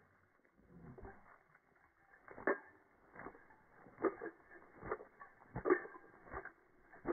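A dog giving a series of short, creaky yelps, a little more than one a second, starting about two seconds in.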